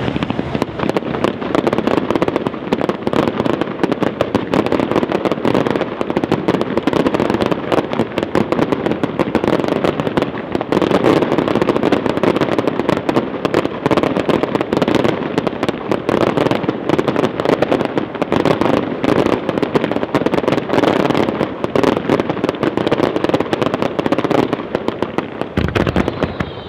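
Aerial fireworks firing in a continuous barrage: dense, rapid bangs and crackles from many shells and comets going off at once, with no let-up.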